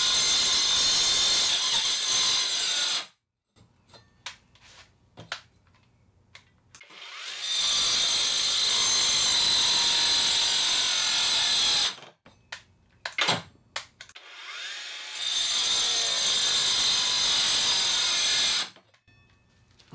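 Cheap cordless angle grinder with a saw blade cutting into a 2x4, running in three bursts of a few seconds each that cut off suddenly as the underpowered grinder stalls in the wood. Clicks and knocks fill the quiet gaps between the bursts.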